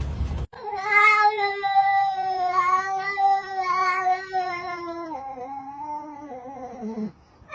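A cat yowling: one long, drawn-out caterwaul lasting about six seconds, wavering slightly and dropping lower in pitch near the end.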